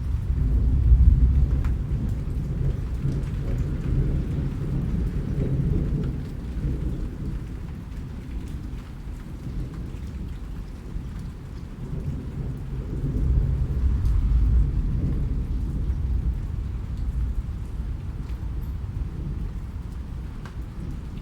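Steady rain with low rolling thunder, swelling about a second in and again about two-thirds of the way through.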